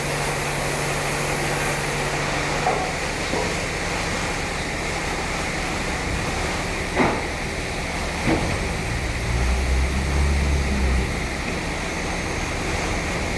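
Sawmill machinery running with a steady noise, broken by three sharp knocks and a low rumble that swells for about two seconds past the middle.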